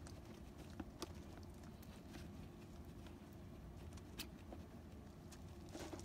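Faint steady motor hum with a few light clicks and taps scattered through it.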